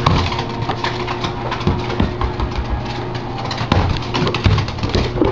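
A small terrier's claws clicking and scrabbling on a hardwood floor as it runs after a bouncing ball, with several dull thumps of the ball hitting the floor, over a steady low hum.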